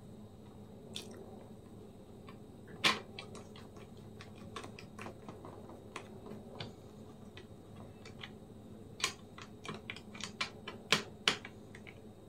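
Irregular small clicks and taps of a screwdriver and small parts as a screw is driven to fix the cooling fan back into a laptop, with a sharper tap about three seconds in and a quick run of clicks near the end.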